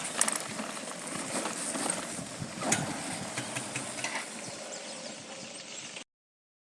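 Motorbike running over a rough dirt road, its engine noise mixed with scattered rattles and knocks. It cuts off to silence about six seconds in.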